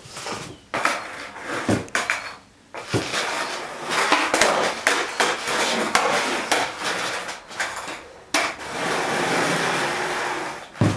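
Skateboard being ridden: wheels rolling with a noisy rumble, broken by a run of sharp clacks and slaps as the board's tail pops and the deck lands on the floor. A longer stretch of steady rolling comes near the end.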